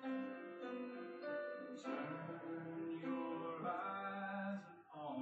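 Background music with guitar, held notes changing every second or so.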